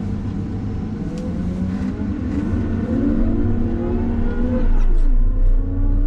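Caterpillar 930 wheel loader's diesel engine pulling under acceleration, its pitch rising steadily, then dropping back about five seconds in as the transmission shifts up and starting to climb again, over a low rumble that grows heavier near the end.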